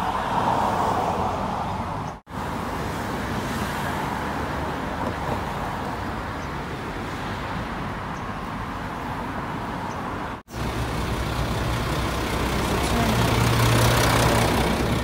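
City street traffic: cars and buses passing, a steady road noise that drops out briefly twice. An engine's low hum grows louder near the end.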